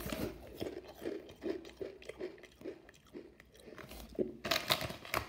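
Chewing crunchy Pom-Bear puffed potato crisps, with short, crisp crunches about three a second. Near the end a denser rustling sets in.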